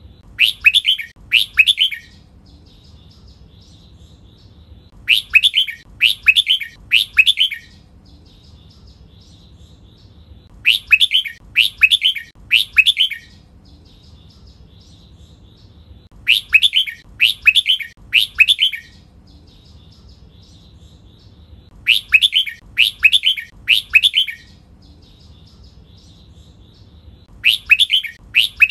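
Red-whiskered bulbul singing: short loud phrases of about three sweeping whistled notes, repeated about every five and a half seconds, with faint high twittering between the phrases.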